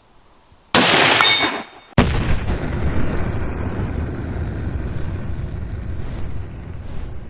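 A loud .308 rifle shot about a second in, with a ringing tone under it. About a second later comes a sudden heavy boom that rolls on and fades slowly.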